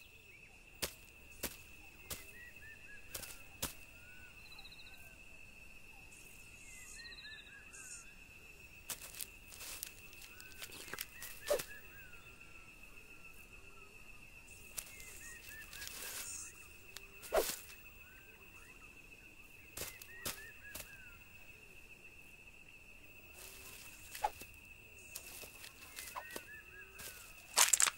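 Quiet wild-savanna ambience: a steady high-pitched whine, small birds chirping on and off, and scattered sharp clicks and rustles, a few of them louder.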